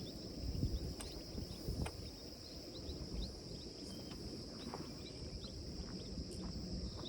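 A steady chorus of insects, one constant high-pitched drone, with short scattered chirps over it and low rumbling noise underneath.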